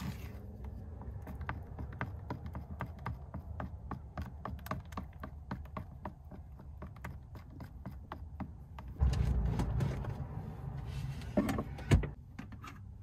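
Spatula stirring in a bowl, making many small irregular ticks and scrapes against the bowl. About nine seconds in comes a louder low rumble lasting a second or so, then two sharp knocks near the end.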